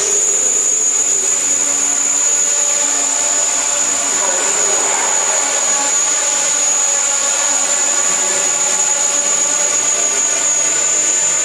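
Hexacopter's six electric motors and propellers whirring steadily in flight, many close pitches blending into an even drone with a steady high-pitched whine above it.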